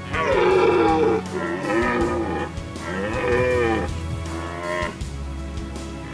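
Red deer stag roaring in the rut: a loud, long roar, then three shorter roars about a second apart, their pitch bending up and down.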